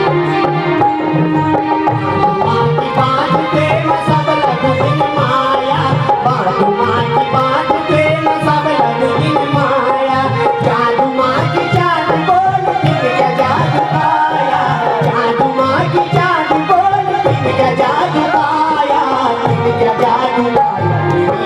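Kumaoni folk music with a steady, driving hand-drum rhythm under a bending, gliding melody line.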